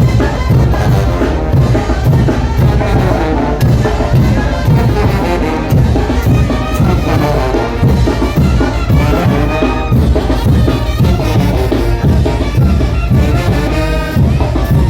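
Brass band playing a son de chinelo, with trumpets and trombones carrying the melody over a steady drum beat.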